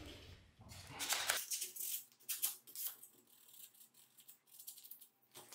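Sandpaper rubbed by hand over the edge of a polystyrene (HDPS) skirting board, lightly taking down excess at a corner joint: soft, irregular scratchy strokes, louder for the first few seconds and then fading to faint scrapes.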